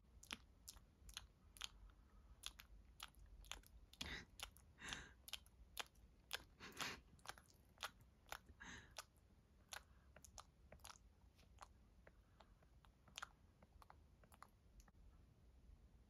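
Faint, irregular clicks and small crunches over near silence, a few louder ones clustered around the middle and thinning out towards the end.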